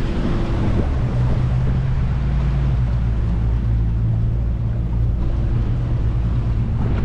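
Boat engine running steadily with a low hum, under wind buffeting the microphone and the rush of sea water.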